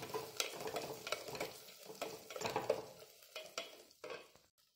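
Wooden spatula stirring chopped onions and chillies frying in hot coconut oil in a steel pot: a light sizzle with small scrapes and clicks of the spatula against the pot, fading out near the end.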